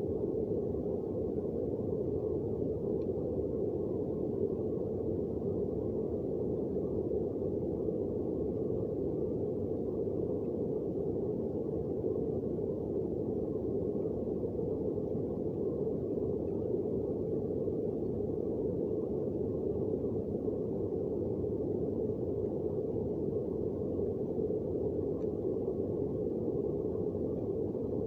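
Steady, muffled roar of heavy rain, even in level throughout.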